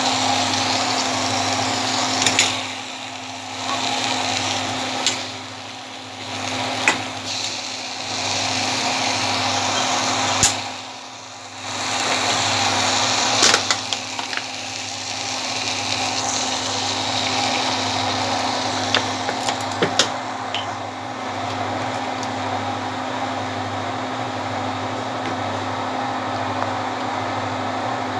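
Fish head and leafy greens sizzling in an iron wok, with a steel ladle scraping and knocking against the pan now and then. A steady mechanical hum runs underneath.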